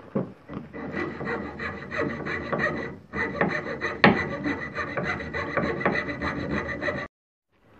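Hand fretsaw cutting through a thin wooden board with fast rasping strokes, about five or six a second. There is a brief pause about three seconds in. The sawing stops abruptly near the end.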